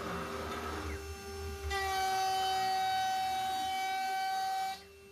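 CNC router spindle running a two-flute BAP300R milling cutter with PCD inserts through aluminium, with a steady spindle whine underneath. About two seconds in, the cut turns into a loud, steady, high-pitched ringing whine, which cuts off suddenly near the end.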